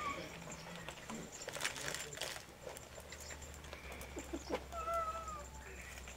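A cat meows once, briefly, about five seconds in, among a few faint clicks and knocks.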